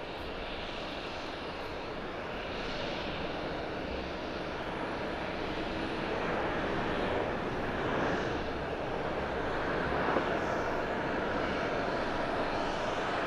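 Japan Airlines Boeing 767-300ER's twin jet engines as it rolls along the runway: a steady rush of jet noise that grows gradually louder as the aircraft nears.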